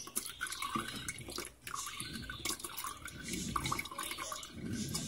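Blended rice-and-water mixture pouring and draining through a mesh strainer into a plastic container, with irregular splashing and dripping, and a metal spoon stirring and scraping in the strainer.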